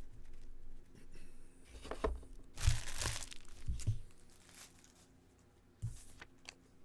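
Trading card pack wrapper being torn open and crinkled, in several short rustling bursts, the loudest a few seconds in.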